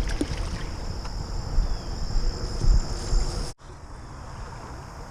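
Wind buffeting the microphone with rumbling handling noise, then an abrupt cut about three and a half seconds in to quieter creek ambience with a soft, even hiss of flowing water.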